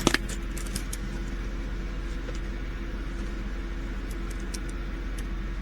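Steady low background hum with a few light clicks, sharpest right at the start and near the end.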